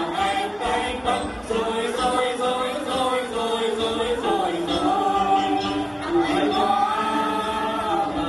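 A group of voices singing Then, the Tày ritual song, together in long held notes with slow slides between pitches, accompanied by đàn tính long-necked lutes.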